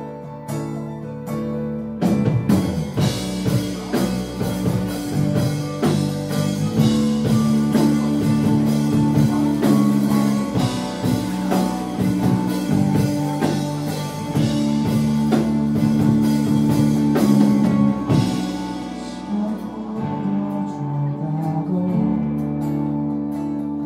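A live band playing a song, with electric bass and guitar. It starts quietly, then the full band comes in loudly about two seconds in.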